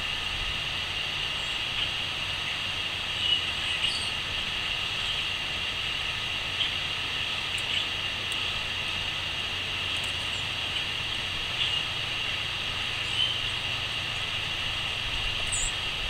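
Steady high crickets chirring, with short bird chirps dotted over it every second or two, above a low rumble.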